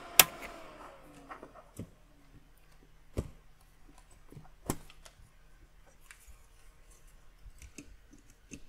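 Sharp clicks and light knocks of hands handling a bare computer logic board and fitting a plug onto its 25-pin SCSI port, the loudest click about a quarter second in and two more near 3 and 5 seconds, over a faint steady hum.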